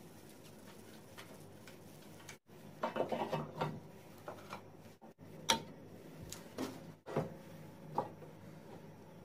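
Sharp metallic clicks and clinks of metal parts being handled and clamped in a steel bench vise with brass strips: a quick cluster about three seconds in, then single clicks roughly every second, broken by a few abrupt dropouts.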